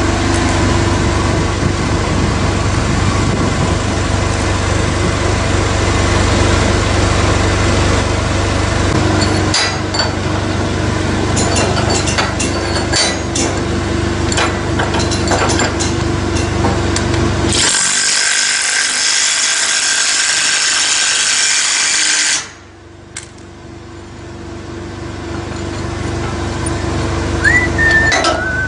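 A machine's engine running steadily while chain-hung concrete wall panels are set into place, with scattered knocks and clanks from about a third of the way in. About two-thirds through, a loud hiss lasts some five seconds and cuts off suddenly; the sound then drops and slowly builds again.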